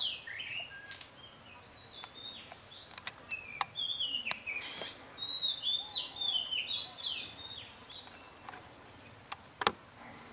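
A small bird singing runs of quick high chirping notes that come and go. A few sharp clicks fall between them, the loudest near the end.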